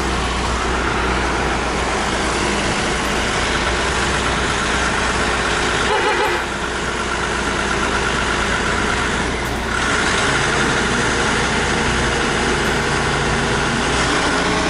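Truck's diesel engine running steadily at low speed while manoeuvring, with a short dip in level about six seconds in and a slight rise at about ten seconds.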